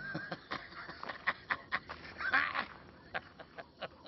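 Two short bursts of high, wavering vocal sound, one at the start and one about two and a half seconds in, with scattered sharp clicks between them that fade away toward the end.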